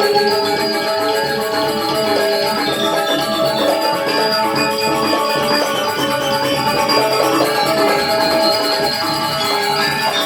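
Balinese gong kebyar gamelan playing: many bronze metallophones and gong-chimes ringing together at a steady, even loudness.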